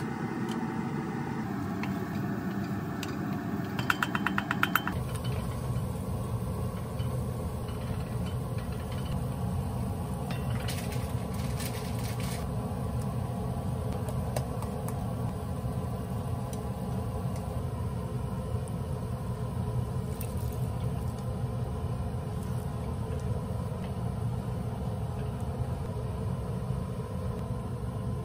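Stovetop cooking: onions caramelising in an enamelled cast-iron pot, stirred with a wooden spoon, over a steady low rumble. A quick run of clicks about four seconds in.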